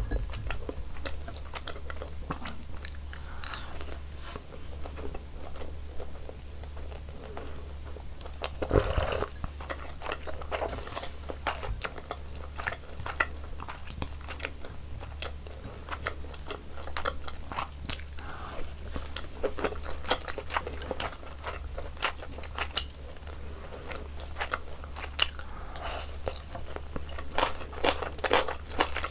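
Close-miked eating sounds of a person chewing a meal of beef seaweed soup and rice: many short wet clicks and smacks, with a denser cluster about nine seconds in.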